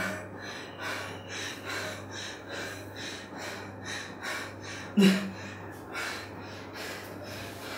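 A frightened man panting hard, quick breaths about two a second, with a short voiced gasp about five seconds in. A steady low hum runs underneath.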